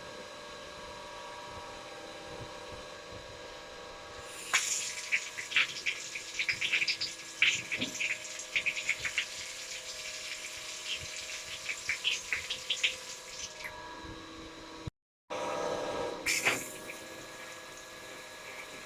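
Water running from a brass wall mixer and splashing, with many small irregular spatters. It starts suddenly about four seconds in and stops about fourteen seconds in. After a short cut, water runs briefly again.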